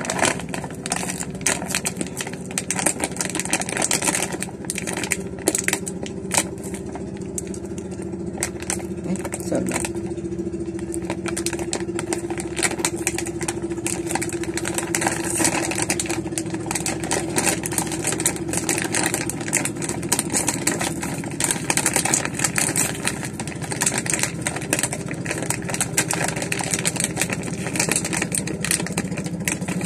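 Crinkly plastic snack bag of Oishi prawn crackers being pulled and twisted as it is worked open, with many short crackles. Underneath, a motor engine runs with a steady hum.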